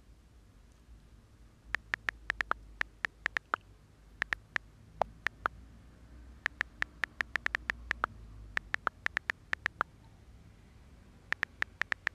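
iPhone on-screen keyboard clicks as a message is typed: rapid runs of short, sharp key clicks with brief pauses between words, starting about two seconds in, over a faint low room rumble.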